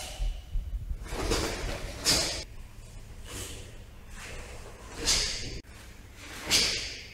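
Karate kata being performed: about five short, sharp, hissing exhalations, each timed with a technique, with the swish of the cotton gi.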